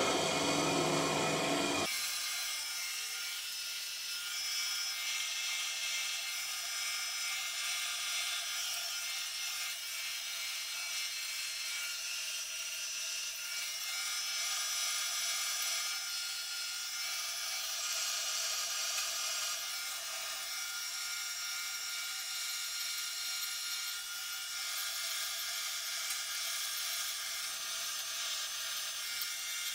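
Metal-cutting band saw blade cutting lengthwise through a steel block, a steady high, hissing cut. It is louder and fuller for about the first two seconds, then settles to an even cutting sound.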